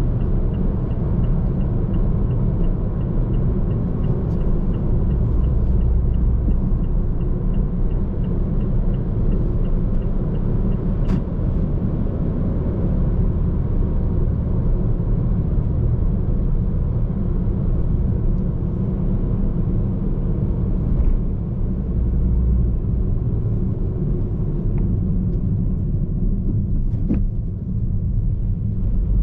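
Steady low rumble of engine and tyre noise inside a car cabin while driving on a main road. A faint, regular ticking runs through roughly the first ten seconds.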